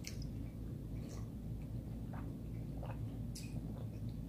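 Faint sounds of eating and drinking at a table: a few soft clicks and smacks scattered through, over a low steady room hum.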